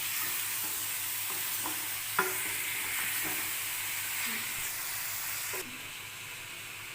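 Chicken pieces sizzling in hot ghee in a kadai while being stirred with a spatula, with a few light knocks and scrapes of the spatula on the pan, the sharpest about two seconds in. The sizzling drops suddenly in level about five and a half seconds in.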